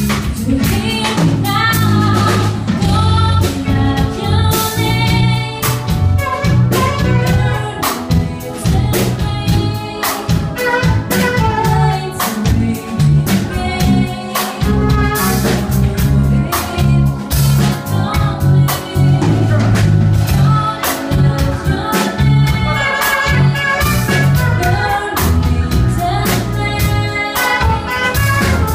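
Live band playing a song: a woman singing over electric keyboard, bass and drum kit.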